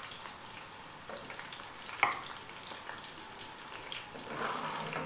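Okra deep-frying in hot oil in a kadai, a steady light sizzle. A single sharp clink of the metal slotted spoon sounds about two seconds in, and the sizzle swells briefly near the end.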